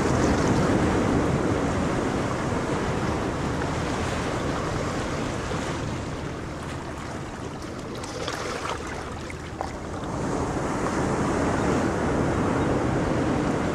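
Steady rush of wind and water with wind buffeting the microphone, and a few brief splashing or rustling sounds about eight to nine seconds in.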